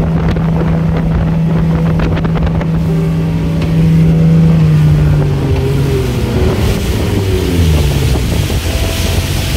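A 250 hp outboard motor driving a center-console boat at speed, a steady loud drone under wind and water rush. About five seconds in, the engine note starts to fall and keeps dropping for a few seconds as the boat comes off plane.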